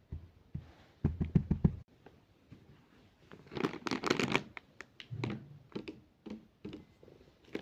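Close handling noise: two short bouts of rustling and scratching, then a few separate sharp clicks.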